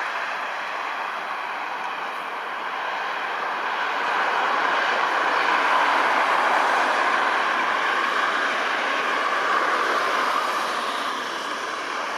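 Boeing 747-400's four GE CF6-80C2 turbofan engines at takeoff power, a steady jet roar that swells louder as the jet lifts off about halfway through and eases slightly as it climbs away near the end.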